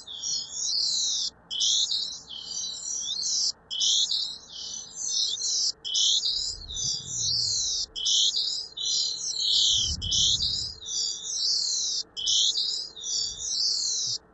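Live video image of a face converted into sound by image-to-sound software for the blind: a hissing, chirping scan of high-pitched tones that repeats about every two seconds, one sweep per picture frame, with a brief break between frames.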